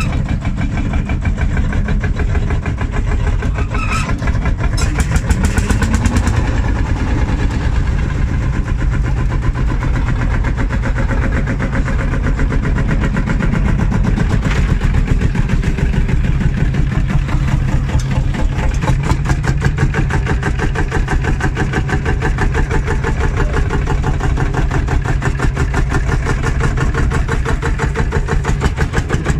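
Vintage Marshall tractors' single-cylinder diesel engines running, with a steady, regular beat.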